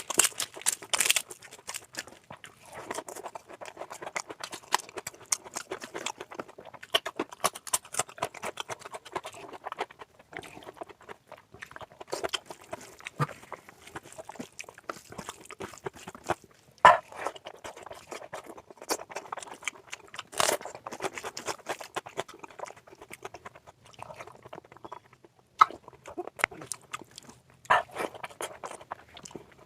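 Close-miked chewing and mouth smacking of a person eating oily mutton curry with rice: a dense, irregular run of small wet clicks, with a few louder smacks.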